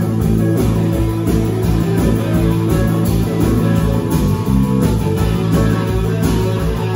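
Live blues band playing loudly: electric guitar over bass and a drum kit keeping a steady beat.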